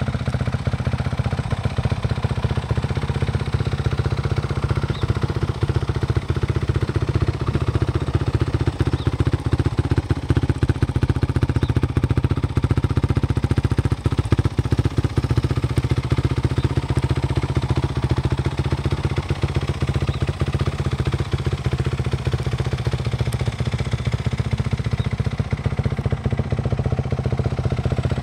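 Kawasaki KX450F dirt bike's single-cylinder four-stroke engine idling steadily.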